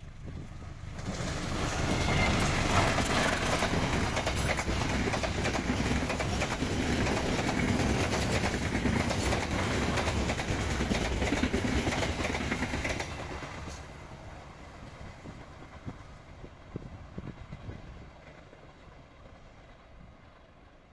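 A train passing close by, its wheels clattering over the rail joints. The noise comes up sharply about a second in, stays loud for some twelve seconds, then fades as the train goes away.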